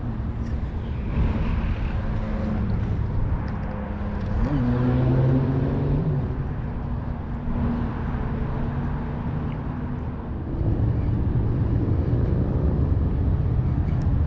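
A distant engine's steady drone, its pitch shifting a little about four to five seconds in, under a low rumble of wind on the microphone.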